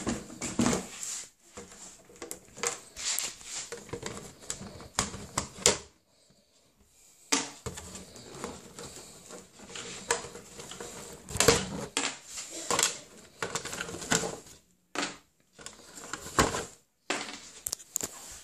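Handling noise: irregular clicks, taps and rustles of hands and plastic, with a quiet pause about six seconds in.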